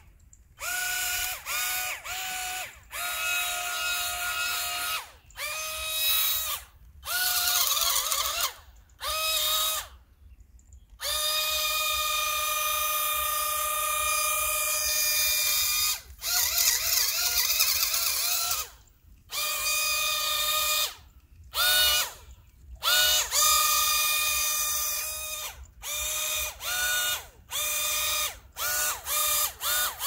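Small electric drive motors of a toy RC amphibious car-boat whining in about twenty short bursts, cutting on and off with brief gaps; each burst rises quickly in pitch, then holds steady.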